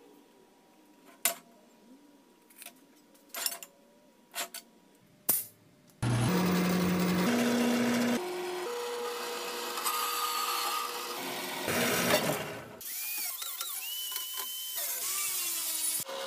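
Several sharp clinks of steel pieces being handled on a workbench, then about six seconds in a horizontal metal-cutting band saw starts cutting square steel tubing: a loud, steady cutting sound with ringing tones that shift in pitch as the blade works through the tube.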